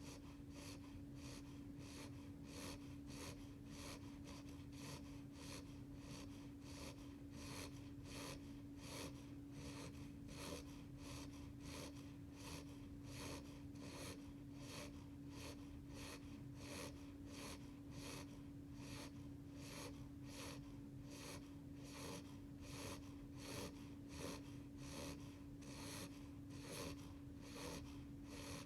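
Beagle puppy snoring softly in his sleep: short, quiet snoring breaths in a fast, even rhythm, over a steady low hum.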